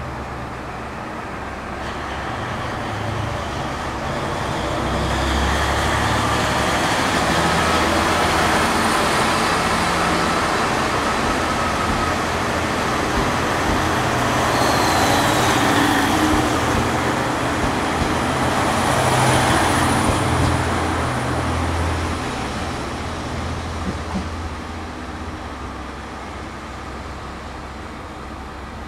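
KiHa 47 and KiHa 40 diesel railcars with their original DMF15HSA diesel engines pulling slowly away under power. The engine sound swells about two seconds in, stays loud through the middle and fades over the last several seconds as the train draws off.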